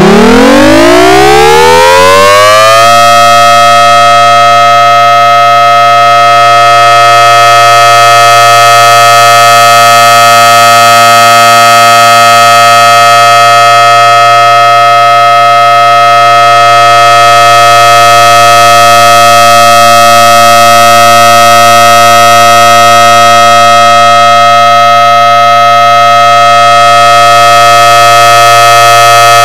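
Synthesized Federal Signal Thunderbolt outdoor warning siren sounding a steady alert signal: it finishes winding up in a rising glide over the first three seconds, then holds a loud steady tone of several pitches that swells and fades slightly about every ten seconds.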